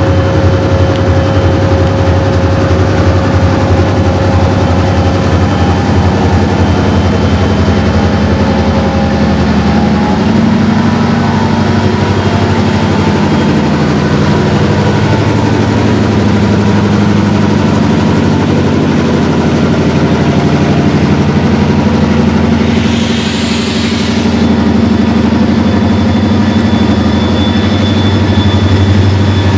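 The EMD 645 diesel engines of Bessemer & Lake Erie SD38AC locomotives working at low throttle as the train pulls slowly past, with a steady deep engine drone whose pitch shifts about ten seconds in. A short burst of hissing air comes about two-thirds of the way through.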